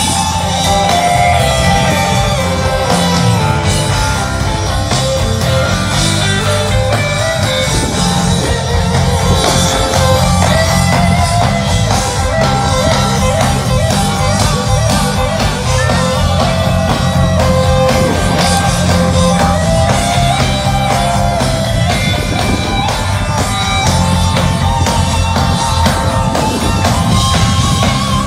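Live rock band playing on an outdoor stage through a PA: electric guitars over a drum kit with a steady beat.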